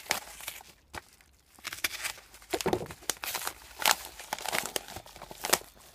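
Parcel packaging being torn open and crumpled by hand: irregular ripping and crinkling, sparse for the first second and a half and then busier and louder.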